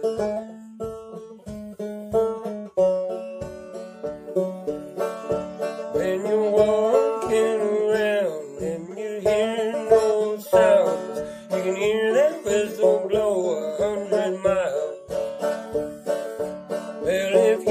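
Banjo picked in a fast, busy rhythm over a steady low thump about twice a second. From about six seconds in, a wavering singing voice with bending pitch joins over the banjo.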